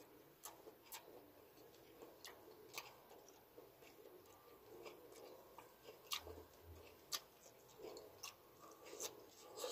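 A person chewing food with the mouth closed, quietly, with irregular short mouth clicks every second or so.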